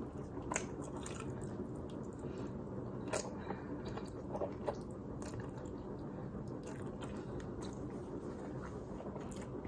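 Close-up mouth sounds of spaghetti being eaten: noodles slurped and chewed, with scattered short wet clicks and smacks.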